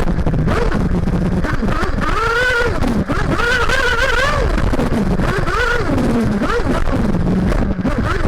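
The tuned Max Power Storm nitro engine of a Kyosho MP9 TKI4 1/8-scale buggy revving up and dropping back repeatedly as it is driven around the track, heard up close from a camera on the car.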